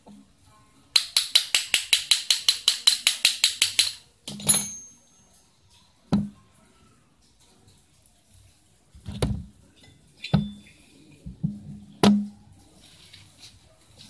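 Socket ratchet wrench clicking rapidly, about six clicks a second for some three seconds. Then a ringing metal clink, and several separate knocks of metal refrigerator-compressor parts being handled and set down.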